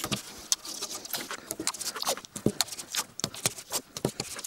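Masking tape being pulled off the roll, torn and pressed onto a plywood panel: a run of irregular crackles and small tearing clicks.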